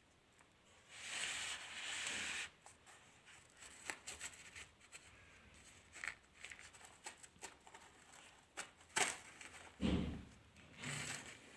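Chunks of dried coloured sand crumbling and crunching. There is a dense crunch for about a second and a half starting a second in, then scattered small crackles, and a few louder crumbles near the end.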